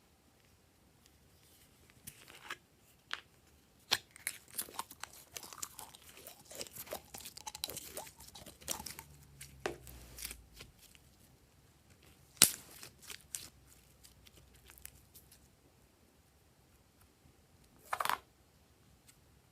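Slime being squished and poked by hand, giving irregular crackling clicks and pops, thickest in the middle, with one sharp loud pop later and a short squelch near the end.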